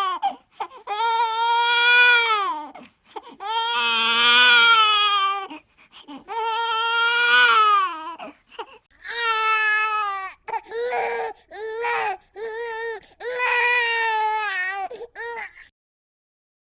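Infant crying: about four long, loud wails of roughly two seconds each, then a run of short, broken cries that stops suddenly near the end.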